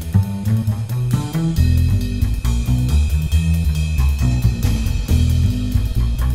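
Background music: a band with drums keeping a steady beat over bass and guitar.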